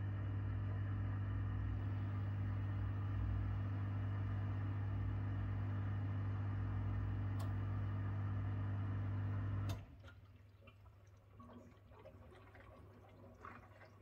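Miele G7310 SC dishwasher's pump humming steadily, then cutting off abruptly with a click about ten seconds in. Faint trickling and dripping of water inside the machine follows.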